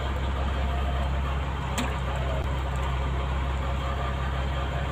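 Fishing boat's engine running steadily, an even low hum.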